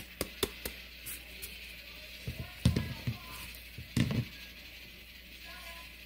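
Kitchen handling sounds: a few light clicks, then two dull knocks on a wooden cutting board about halfway through, as a bunch of wild chives is lifted from a plastic colander and set down on the board.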